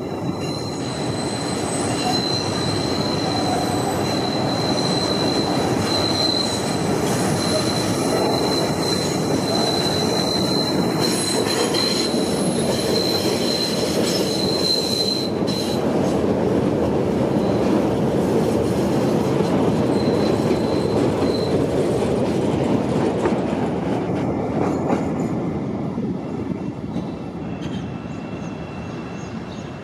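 A CTA 'L' rapid transit train running by, its wheels squealing in a high steady whine for about the first half over a continuous rumble of wheels on rail. The rumble eases off over the last few seconds.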